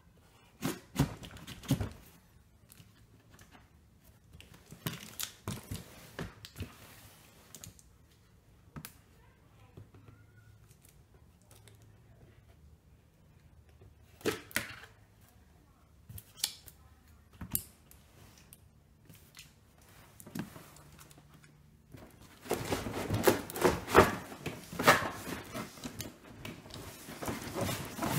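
Large cardboard toy box being handled and its packing tape slit with a knife: scattered scrapes, taps and knocks. From about 22 seconds in comes a denser run of cardboard and plastic packaging noise as the box is opened.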